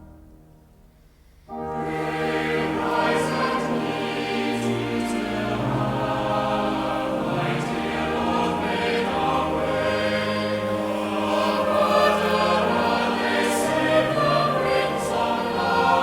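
Background choral music: a choir singing slow, sustained chords. It comes in abruptly about a second and a half in, after a brief near-quiet fade.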